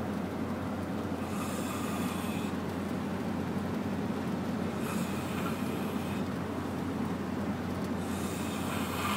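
Snoring in slow, regular breaths, three noisy breaths about three and a half seconds apart, over a steady low hum.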